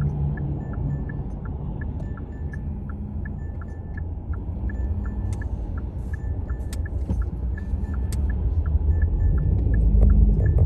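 Road rumble heard inside a moving car, tyres and engine running low and steady and getting louder near the end. Faint small ticks repeat throughout.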